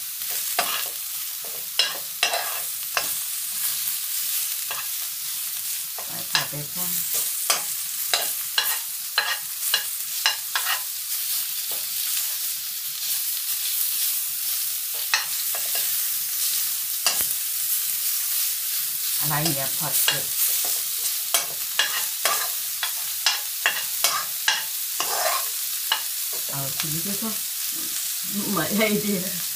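Meat and chilies sizzling in oil in a wok, a steady high hiss, while a metal spoon scrapes and clicks against the wok many times as the food is stirred.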